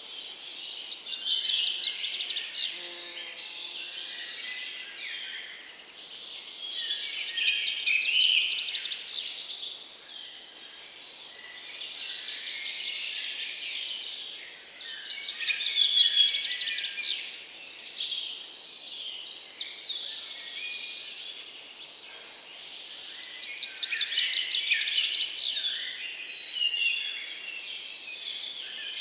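Many songbirds chirping and trilling at once, a dense overlapping chorus of quick high notes and rapid rattling trills that swells louder every several seconds.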